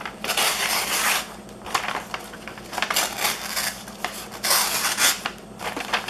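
Blade of a Spyderco Double Bevel C174GP folding knife slicing through a sheet of paper in about four strokes, each a crisp papery rasp. This is a sharpness test, and the edge cuts cleanly: the hollow-ground section slices a little better than the flat-ground tip.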